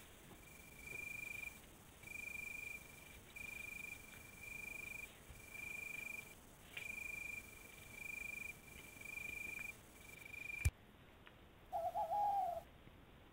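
A night animal's high, steady call, each note lasting about half a second and repeated about once a second. About eleven seconds in there is a sharp click, after which the calls stop. A short wavering lower call follows near the end.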